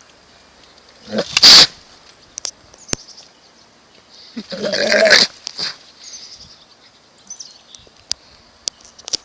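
An animal calling twice: a short, harsh call about a second in, then a longer, pitched call around five seconds in.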